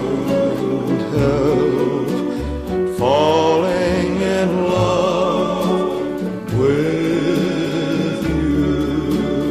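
Background music: a pop song with a singing voice held in wavering notes over a bass line and a steady beat.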